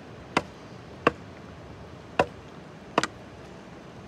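Metal spoon clinking against a stainless steel bowl while scooping curry: four sharp clinks about a second apart.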